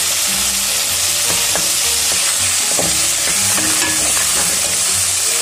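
Keema (minced meat) sizzling in hot oil in a metal pan while being stirred and lightly fried (bhuna) with a metal slotted spoon, the spoon scraping the pan now and then.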